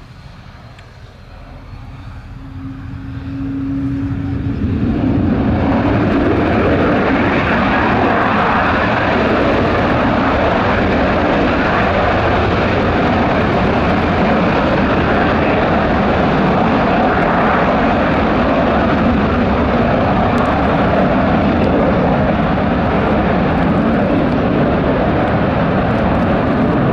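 BAe Hawk jet trainers' Rolls-Royce Turbomeca Adour turbofans spooling up to takeoff power over the first few seconds, then a steady loud roar as a Hawk begins its takeoff roll.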